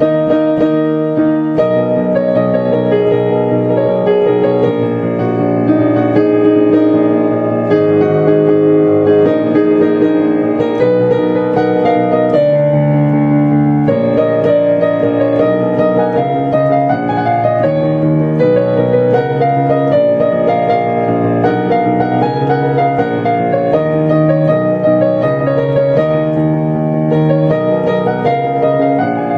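Solo piano playing a pop song arrangement, melody over chords, steadily without a pause.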